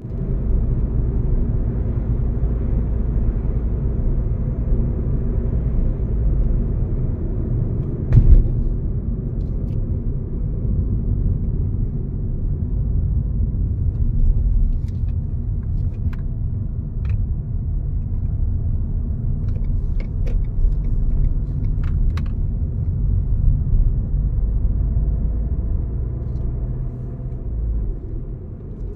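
Steady low rumble of a car's tyres and engine heard from inside the cabin while driving. A single sharp thump comes about eight seconds in, and a few light ticks follow later.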